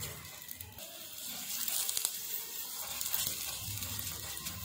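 Oil sizzling under a paratha frying on a hot tawa, with a steel spoon scraping over the paratha as it spreads the oil.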